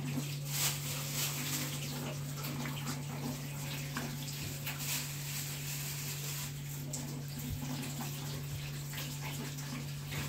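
Kitchen tap running while vegetables are rinsed under the stream, with a plastic bag crinkling now and then as it is handled. A steady low hum runs underneath.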